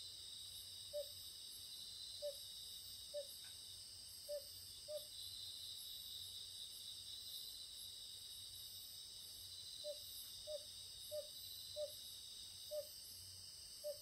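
A night chorus of crickets and other grass insects keeps up a steady, high-pitched trill. Over it, a frog gives short low notes at roughly one a second, pauses for about five seconds in the middle, then starts again; the uploader names the Oriental fire-bellied toad among that night's callers.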